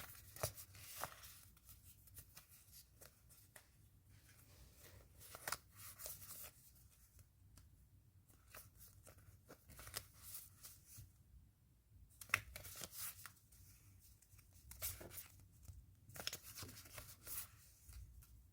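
Faint rustling and tearing of packaging handled by hand, in several short bursts with pauses between them.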